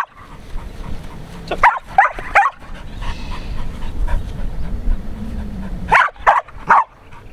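Australian Shepherd barking excitedly in short, sharp yips: three quick barks a little under two seconds in and three more near the end.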